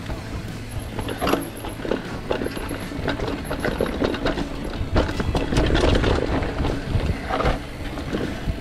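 Mountain bike rattling down a rough dirt trail: many irregular short knocks and clatters from the bike over a steady rumble of tyres on the ground.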